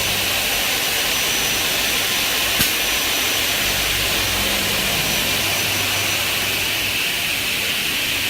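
Saw motors of a double-head aluminium cutting machine running steadily with the blades spinning, a loud even whir with a hiss, and a single sharp click about two and a half seconds in.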